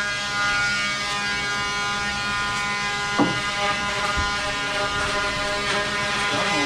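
Steady buzzing hum of a running electric motor, with a short knock about three seconds in and another about a second later.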